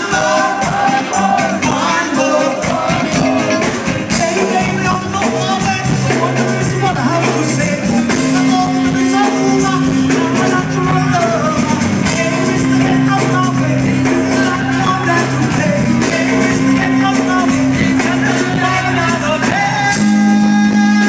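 Live reggae band playing, with singing over it, heard through the stage PA. Long held low notes run under the melody, and a held chord comes in louder near the end.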